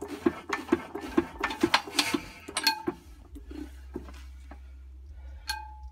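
Imperial Super Diesel single-cylinder diesel hit-and-miss engine being cranked over by hand without firing: a rapid, uneven clatter of mechanical clicks that stops about three seconds in. Near the end comes a single metallic clink that rings briefly.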